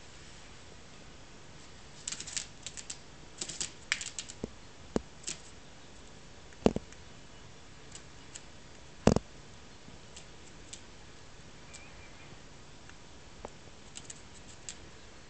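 Irregular sharp clicks and taps with two louder knocks around the middle: a tame female Eurasian blackbird's claws and beak on a plastic tablecloth as it hops about and pecks at a strawberry.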